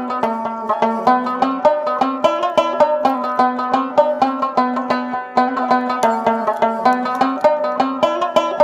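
Background music: a quick plucked-string tune, notes struck in a fast, even rhythm over a steady low note.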